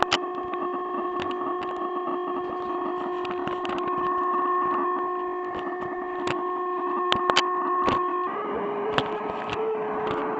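Electronic noise-machine drone of feedback-type sound: several steady held tones stacked together, peppered with sharp clicks and crackles. A little past eight seconds in, the tones jump slightly higher in pitch and the sound turns rougher and noisier.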